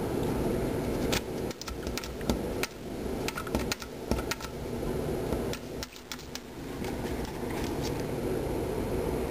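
A cat at a window making irregular light taps and clicks over a steady hum, most of them between about one and seven seconds in.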